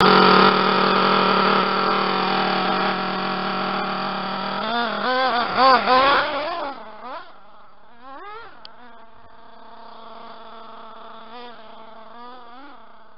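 Reely Rex buggy's big-block nitro engine idling loud and steady up close, then revved in several quick blips about five seconds in. The buggy then pulls away, and the engine is heard much fainter, its pitch rising and falling as it is throttled.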